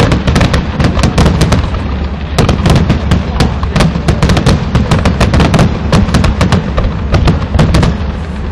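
Fireworks display: a dense, rapid barrage of firework bangs and crackles, several a second, over a continuous low rumble.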